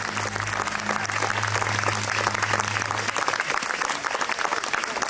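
Audience applauding as the dance ends, with the last held low note of the music stopping about three seconds in.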